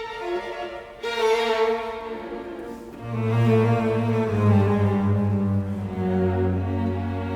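Background music of bowed strings, a violin line over cello and double bass, with a sustained low bass note coming in about three seconds in.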